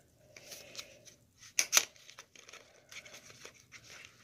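Small white paperboard product box being handled and opened by hand: short scrapes, rustles and tearing of cardboard, the loudest about a second and a half in.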